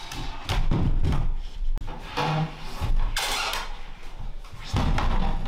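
Irregular knocks and thuds of wood being bumped and handled on a wooden floor, with a brief scrape about three seconds in.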